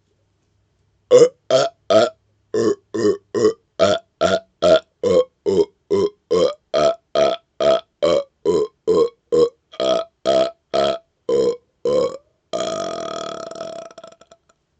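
A man belching rapid-fire: about two dozen short burps in quick succession, two to three a second, then one longer drawn-out burp near the end.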